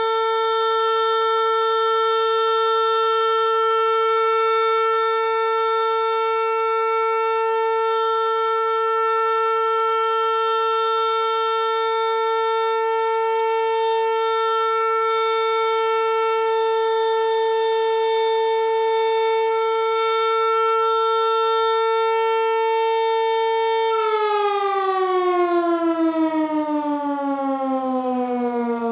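Hörmann HLS 373 high-performance civil-defence siren (built 1984) sounding one long steady tone, the all-clear signal of a siren test. About 24 seconds in, the tone ends and the pitch slides steadily down as the siren winds down.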